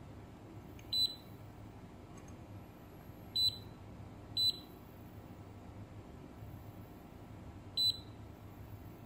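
Kaiweets KM601 digital multimeter giving four short, high-pitched beeps as its test probes are touched across the leads of a power MOSFET under test. The first comes about a second in, two more follow close together around the middle, and the last comes near the end.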